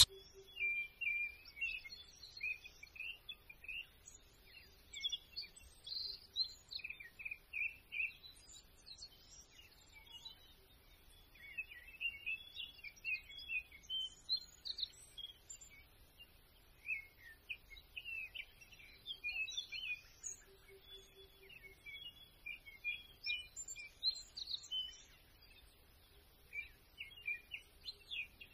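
Small birds chirping and calling on and off, faint, as a chorus of short, varied notes.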